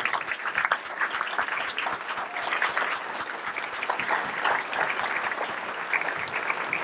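Audience applauding: many hands clapping in a steady, even wash that holds at the same loudness throughout.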